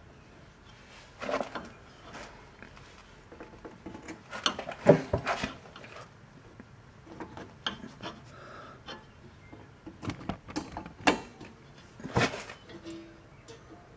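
Pliers and drum-brake hardware being handled as a shoe return spring is stretched and hooked on: scattered clicks, scrapes and rattles, loudest about five seconds in and again near the end.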